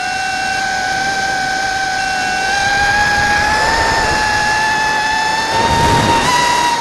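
Airblade ZMR150 mini quadcopter's motors and propellers whining steadily, heard from its onboard camera, the pitch slowly rising as it speeds up on a low pass over the ground. A rush of noise comes in near the end.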